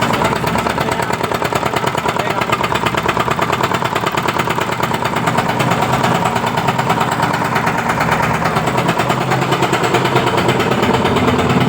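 Mahindra Jeeto engine running with a loud, fast, steady rattling knock, a very harsh noise that the mechanic says can come from a jammed, blocked or stuck-open EGR valve.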